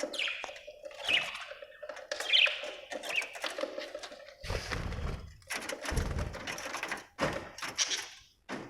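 Budgerigars giving short chirps in the first half, followed by several sudden dull thumps with a knock-like low end.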